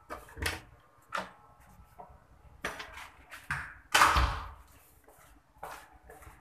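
Footsteps on a tiled floor, with camera-handling knocks, as someone walks down a hallway. A single heavier thump stands out about four seconds in.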